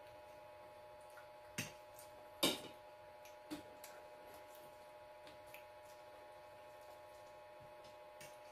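A few scattered small clicks and knocks from eating at a table, over a steady low hum in a quiet room. The loudest click comes about two and a half seconds in.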